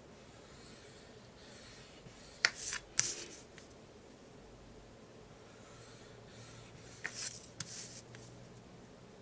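Paper being handled: two short spells of paper rustling and sliding, the first about two and a half seconds in and the second about seven seconds in.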